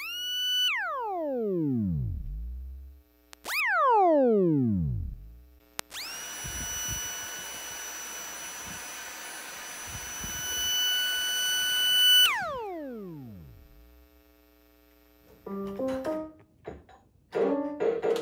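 Electromagnetic field of a Dyson handheld cordless vacuum's motor, heard through an induction-coil EMF microphone as an electronic whine. It sweeps down in pitch twice as the motor winds down, then holds a steady high whine with hiss for about six seconds before sweeping down again. Near the end come short stepped electronic tones from an electronic keyboard held against the coil.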